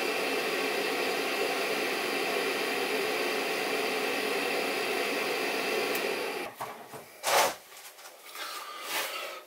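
Chinese 5 kW diesel parking heater's blower fan running steadily in its after-run once the heater has been switched off, which the owner takes for clearing out residual heat. The fan stops about six and a half seconds in, and a short burst of rushing noise follows about a second later.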